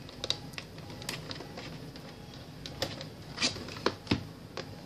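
Fingers handling and picking at a cardboard retail box with a clear plastic blister window, trying to open it: scattered light clicks and taps, with a few louder clicks in the second half.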